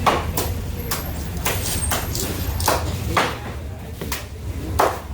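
A knife chopping through a fish on a cutting block: sharp, irregular strokes roughly one or two a second, over a steady low hum.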